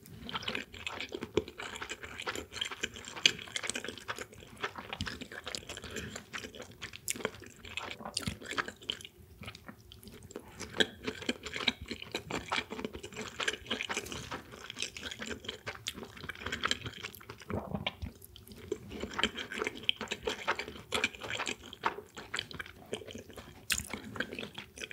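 Close-miked chewing of sushi, starting with a piece of tuna nigiri: many small irregular mouth clicks and smacks, with a few brief pauses.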